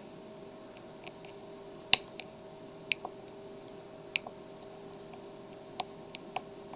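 Lock pick working the pins of a Master Lock padlock: about half a dozen small, sharp metallic clicks spread irregularly, the loudest about two seconds in, as pins are set under tension. A faint steady hum lies underneath.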